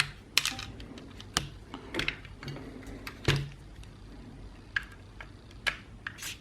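Irregular small clicks and taps of a screwdriver bit working the screws out of an Xbox One controller's plastic back shell, with the controller being handled, about six or seven sharp ticks spread across a few seconds.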